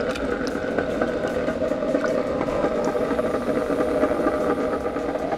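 Cuisinart electric ice cream maker running steadily, its motor turning the frozen bowl around the mixing paddle with a continuous hum and light rattle.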